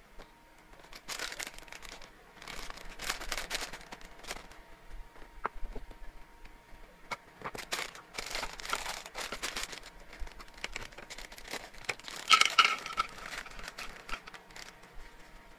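Plastic treat bag crinkling in bursts as it is handled and tipped, with small hard hamster chew pellets (JR Farm mixed-flavour drops) clicking and rattling into a plastic tub; the loudest crinkle comes near the end.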